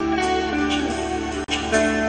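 Live band music with electric guitar in the lead, playing held notes over a steady backing. The sound cuts out for an instant about one and a half seconds in.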